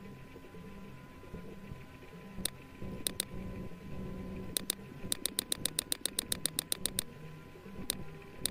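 Computer mouse button clicking: single clicks and pairs, then a fast run of about fifteen clicks over two seconds as the line-spacing spinner is stepped down, then one more click near the end. A faint low hum lies under them.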